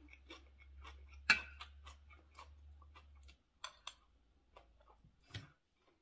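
A person chewing a mouthful of spicy raw-seafood salad close to the microphone: a run of short wet clicks and smacks, one louder about a second in and a few more near the end, over a faint low hum that stops about halfway.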